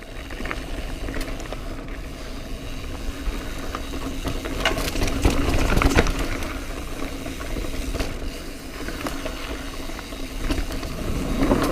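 Mountain bike being ridden over a rough trail of roots and loose rocks: tyre noise and the bike rattling over bumps, with low wind rumble on the microphone. Clicks and knocks run throughout, and the rattling is loudest about five to six seconds in.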